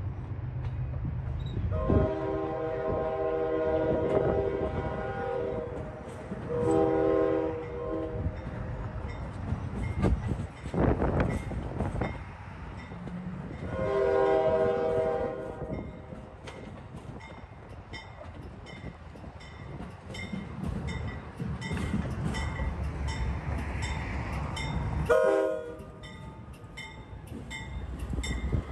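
Amtrak train horn sounding four blasts, three long and a last short one, over the rumble of a diesel train rolling through the yard. There is a loud rush of noise near the middle and a fast, even high ticking through the second half.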